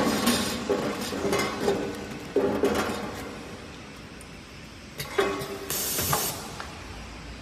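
Semi-automatic PE tube-film packaging machine working, with irregular metallic clicks and clanks. Around five to six seconds in come more knocks and a short hiss.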